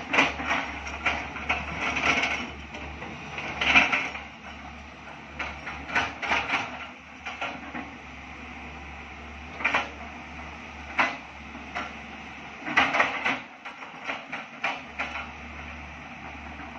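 Tracked hydraulic excavator digging: a steady low engine hum with irregular metallic clanks and rattles from the bucket and arm as it works. The hum drops away for a moment late on.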